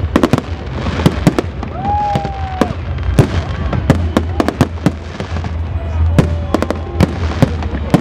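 Aerial fireworks display: frequent sharp bangs and crackles over a continuous low rumble.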